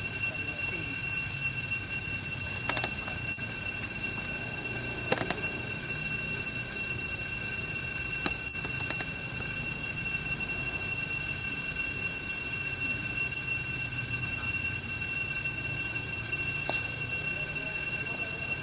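A steady high-pitched drone made of several even tones that hold unchanged throughout, with a few faint ticks.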